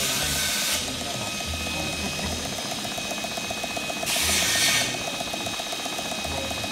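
Small hand-built horizontal mill steam engine running on steam, with a fast, even mechanical ticking. Two short bursts of hissing come, one ending just under a second in and another about four seconds in.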